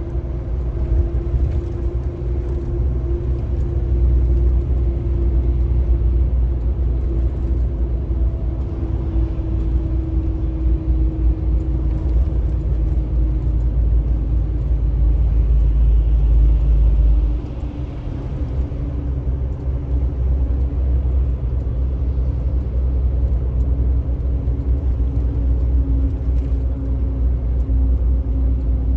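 Road and engine noise heard from inside a moving vehicle on a highway: a steady low rumble with an engine hum that slowly falls in pitch. The rumble drops noticeably about two thirds of the way through.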